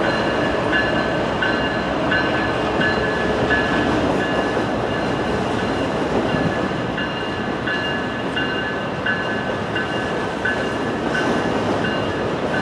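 CSX freight train rolling past with a steady rumble of wheels on rail. A bell-like ringing repeats about every 0.7 seconds throughout.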